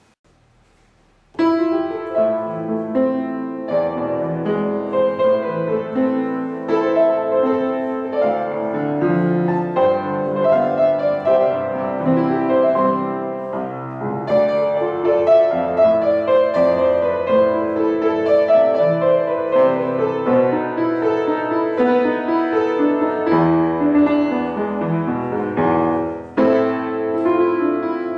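Upright piano playing a slow pop ballad with both hands: a right-hand melody over a steady left-hand chord accompaniment. It starts after about a second of silence.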